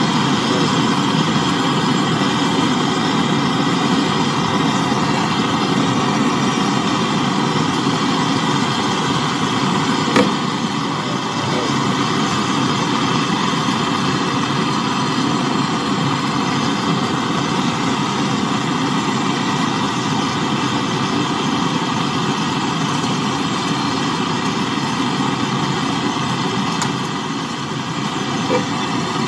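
Gas brazing torch flame burning with a steady hiss as it heats a copper process-pipe joint on a freezer compressor, with a single short click about ten seconds in.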